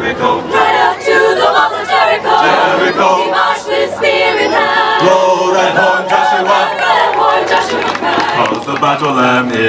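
Mixed-voice college chamber choir singing together, many men's and women's voices in harmony.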